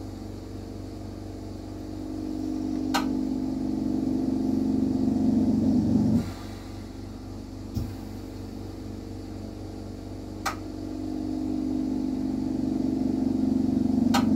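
A machine's humming motor with a steady tone that swells over several seconds and then cuts off suddenly, twice, about nine seconds apart. A few faint clicks and a low thump fall in between.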